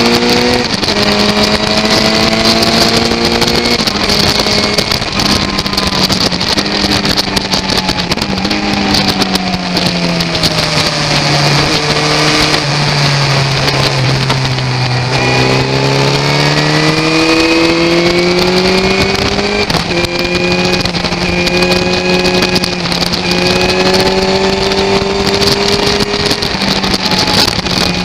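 Motorcycle engine at full speed on a race track. It pulls up through the gears, dropping in pitch at an upshift about four seconds in, then falls slowly to a low note as the bike slows for a corner, climbs again, and shifts up twice more near the end. Heavy wind noise on the microphone.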